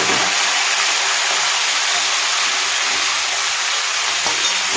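Marinated chicken pieces sizzling steadily as they fry in hot mustard oil in a karai.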